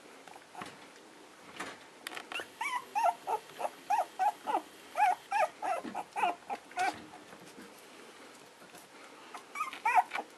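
Puppies yipping and whining in a quick run of short, high squeaky cries, about three a second, for several seconds, then a few more near the end: littermates squabbling at play.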